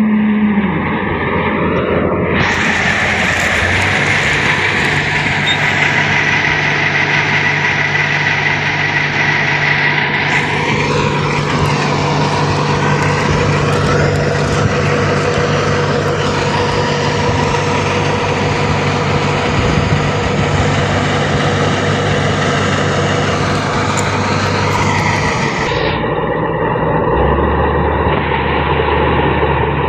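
New Holland combine harvester running steadily under load, its engine and machinery making a continuous drone. The sound shifts abruptly three times along the way.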